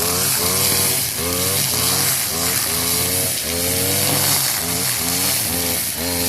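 Brush cutter (forestry trimmer) engine running hard while cutting, its pitch dipping and rising again over and over, about every half second, as the cutting head swings through the growth, over a loud high hiss.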